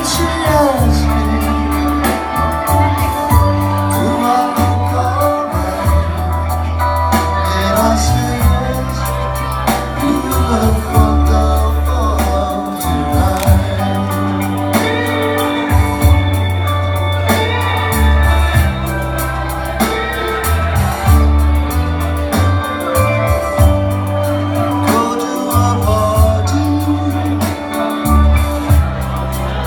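A slow song with a singer's voice over long held bass notes, playing for a couple's first dance.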